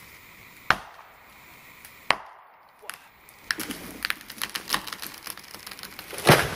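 Two sharp axe chops into a dead standing tree, then the trunk cracking and splintering in a quick run of snaps as it tips over, ending near the end in a heavy crash as the tree hits the ground.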